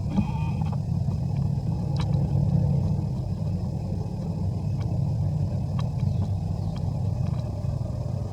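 Steady low rumble with a few faint clicks, and a brief faint squeak in the first second.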